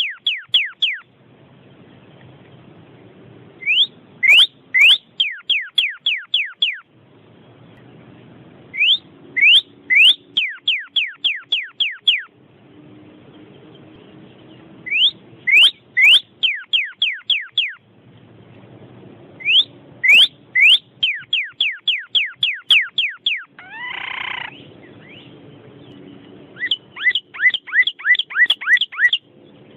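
Recorded songbird calls: runs of about eight to ten quick rising whistled notes, each run two to three seconds long, repeated every five seconds or so. A single harsher, drawn-out call comes about three quarters of the way through.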